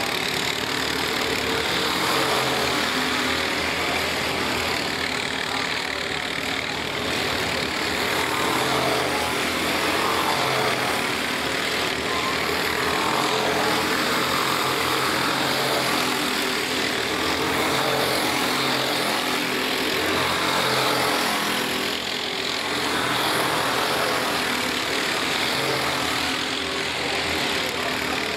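Several four-stroke racing kart engines running at race pace. The note swells and fades every few seconds as the karts accelerate out of corners and pass close by.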